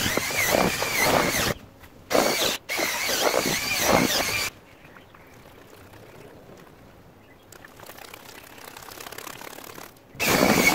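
Electric drill with a mixing paddle churning moulding sand in a plastic tub: a steady motor whine over gritty churning. It runs for about four and a half seconds with a short break near the start, stops, then starts again near the end.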